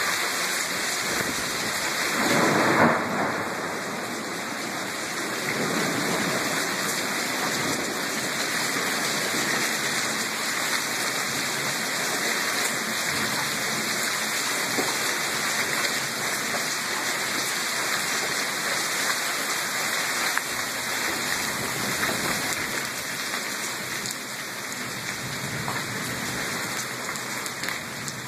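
Heavy thunderstorm rain pouring down in a steady dense hiss, with one brief louder surge about three seconds in.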